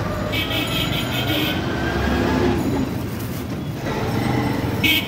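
Busy street traffic with a vehicle running close by, and a high-pitched squeal from about half a second in, heard again briefly near the end.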